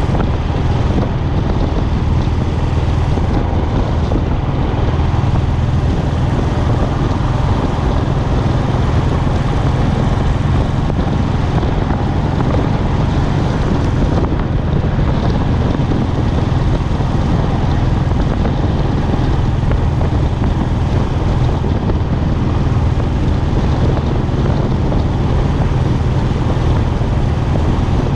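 Royal Enfield Classic's single-cylinder engine and exhaust running steadily at highway cruising speed, mixed with wind noise on the microphone.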